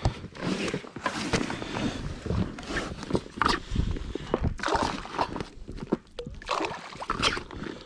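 A baiting spoon scoops and scrapes through a bucket of carp bait (pellets and crushed maize) in irregular rattling strokes as the loads are flung out onto the lake.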